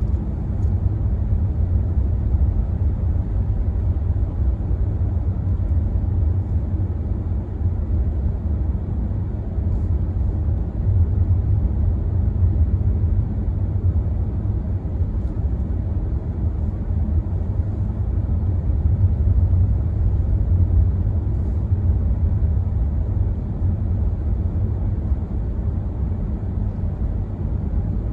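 Steady low rumble of a car driving on a snow-covered road, the engine and tyre noise heard from inside the cabin.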